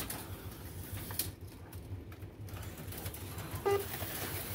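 HO-scale slot cars running on the track, a steady whir and hiss that thins out briefly in the middle, with one short pitched blip near the end.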